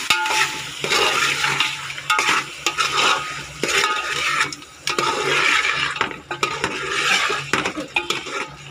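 Metal ladle stirring yogurt into sizzling chicken masala in a pot, in repeated strokes about once a second, with the ladle scraping and clicking against the pot.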